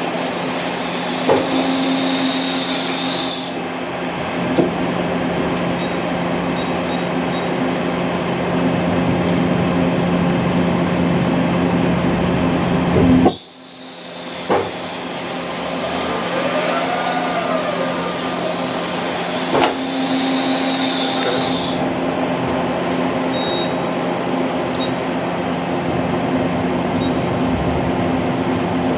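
Okuma MA60HB horizontal machining center running: a steady machine hum, with a motor whine that rises and falls as the pallet table turns, near the start and again about two-thirds through, and a few clunks. About halfway through a sharp clack is followed by the hum briefly dropping out.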